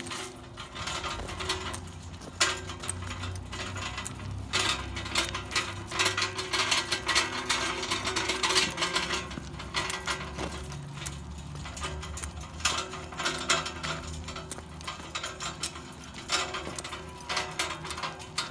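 Dense, irregular mechanical clicking and rattling over a steady low hum.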